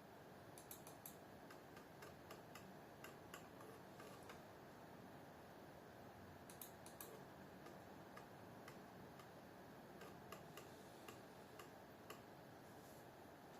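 Faint, short clicks about two a second, sometimes in quick little clusters, over a low background hiss.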